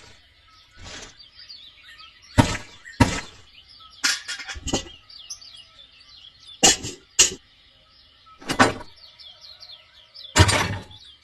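About ten short, sharp knocks at uneven intervals, over faint bird chirping.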